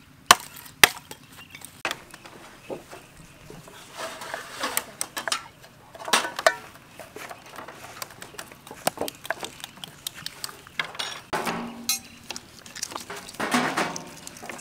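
Scattered sharp knocks and clinks of outdoor food preparation: small ceramic bowls and utensils set down on metal trays and a knife tapping on a chopping board.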